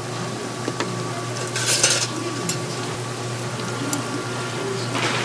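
Food frying in a pan and being stirred, a steady sizzle with a brief louder hiss about two seconds in and again near the end.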